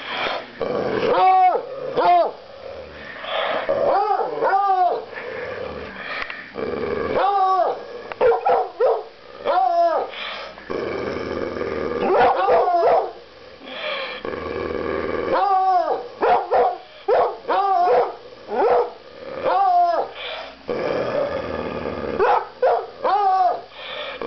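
Coonhounds barking and yipping over and over in short, high, arching barks that come in quick clusters, with stretches of growling between them.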